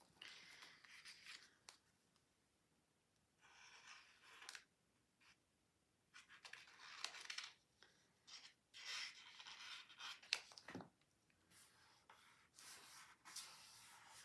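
Faint rustling and rubbing of cardstock in short, scattered bursts with a few small ticks, as hands press and smooth glued paper layers flat.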